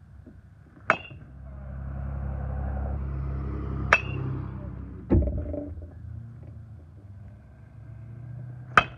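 Metal baseball bat hitting pitched balls: three sharp pings with a short ring, about a second in, about four seconds in and near the end, plus one duller thud a little after five seconds. A low rumble swells underneath for a few seconds in the middle.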